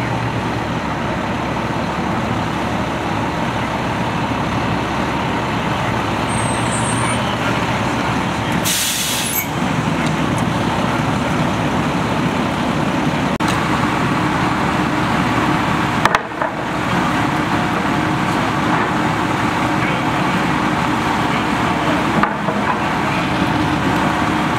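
Fire apparatus diesel engine running steadily at the scene, with a short sharp hiss of air about nine seconds in.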